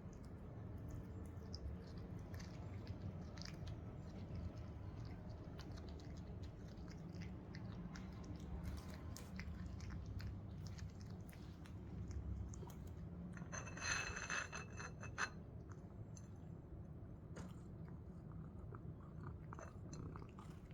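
British Shorthair cat chewing treats: a stream of small, sharp chewing clicks over a low hum. About two-thirds of the way through, a short high-pitched tone lasts a second or so.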